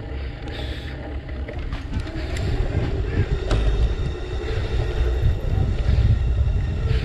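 Wind buffeting the microphone of a camera riding along on a moving bicycle, a low steady rumble that grows louder from about two seconds in, with a few faint clicks.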